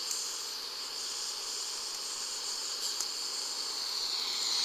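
Crickets chirping steadily over the hiss of a pot of water coming to the boil; the hiss grows louder near the end as the water reaches a full boil.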